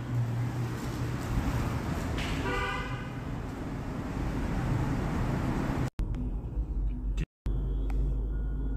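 Street traffic noise with a car horn sounding once, briefly, about two and a half seconds in. The street sound cuts off suddenly about six seconds in, followed by a quieter steady low hum.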